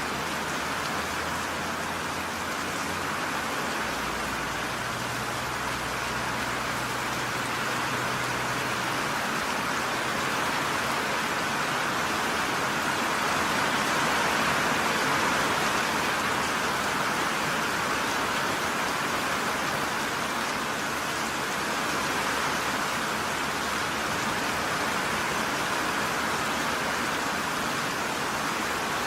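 Steady rain falling, an even hiss of many drops without distinct pauses.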